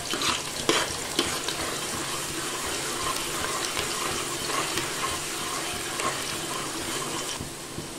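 Sliced onions frying in hot oil in a metal pot: a steady sizzle with a few sharp clicks in the first second or so, easing slightly near the end.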